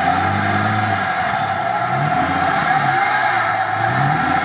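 Toyota FJ Cruiser's 4.0 L V6 revving as the SUV sits stuck in deep mud and water, trying to drive out. The revs climb twice, about two seconds in and again near the end.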